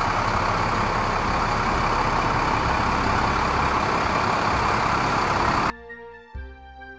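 Vehicle sound effect: a loud, steady rush of engine noise with a low rumble, which cuts off suddenly about six seconds in.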